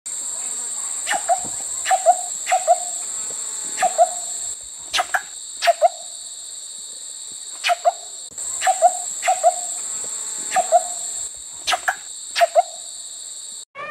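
A coucal calling in short notes, mostly in twos and threes with irregular pauses, over a steady high-pitched buzz of insects.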